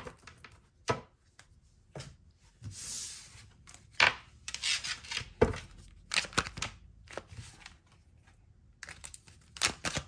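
Tarot cards being shuffled and handled: irregular flicks, slaps and papery swishes of the card stock, with a few brief pauses.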